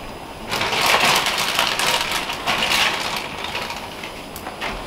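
A plastic zip-top bag crinkling and rustling as it is handled. It starts about half a second in, goes on for about two and a half seconds, then fades.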